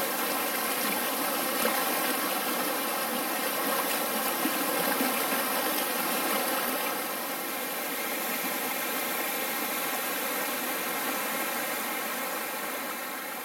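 Mountain stream rushing over rocks in shallow rapids: a steady rush of water, a little quieter from about seven seconds in.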